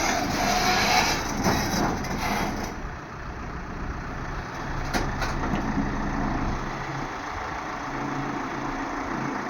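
Heavy diesel engine running at a work site, with a loud rushing noise for the first few seconds that then drops away to a steady low engine hum; a short click about five seconds in.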